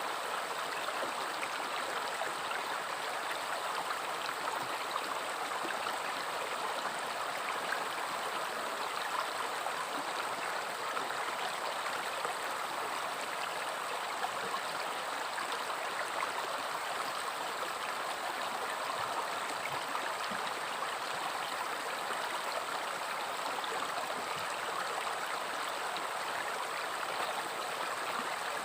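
River water flowing steadily over rocks, a continuous rushing babble with fine splashing and gurgling.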